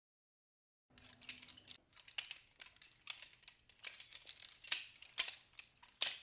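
An irregular run of sharp mechanical clicks and snips, starting about a second in and loudest near the end.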